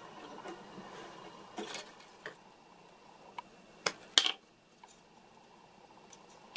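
A few small, sharp clicks and taps of metal pliers being handled against a small amulet piece, the two loudest close together about four seconds in, over a faint hiss.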